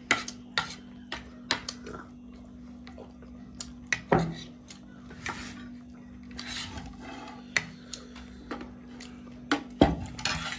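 Metal spoon and fork clinking and scraping on a plastic plate, scooping up leftover noodles: a run of quick clicks at first, then scattered scrapes and a couple of louder knocks about four seconds in and near the end.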